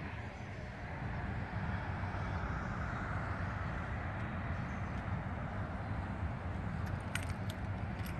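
Road traffic: a steady low rumble with the tyre noise of a passing vehicle swelling a second or two in, and a few sharp clicks near the end.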